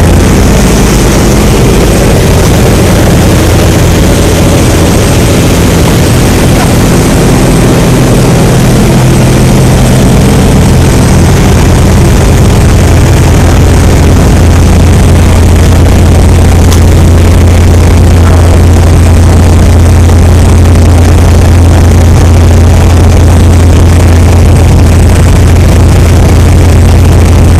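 Motorboat engine running loud and steady at cruising speed, with the rushing hiss of the churning wake behind the stern.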